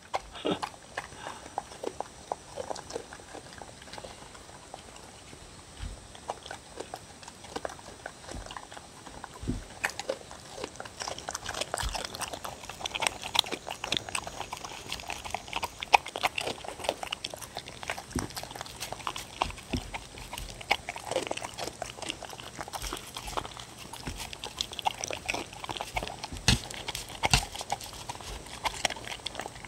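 Two dogs eating from wooden bowls: chewing and licking, with many short clicks and knocks. The clicks grow busier and louder from about ten seconds in.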